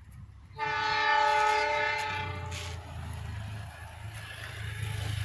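Diesel locomotive horn sounding one long blast about half a second in, several tones at once, then fading. A low, steady rumble from the approaching train follows and grows louder near the end.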